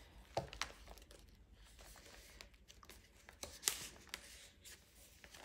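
Stiff decorated paper journal pages being handled and turned: soft paper rustles with a few light taps, the sharpest about half a second in and again near four seconds in.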